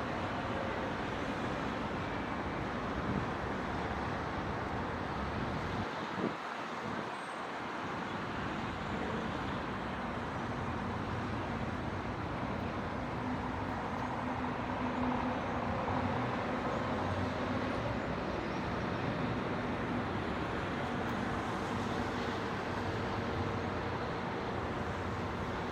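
Steady city traffic noise: a continuous wash of distant road traffic, with a low engine hum standing out through the middle part.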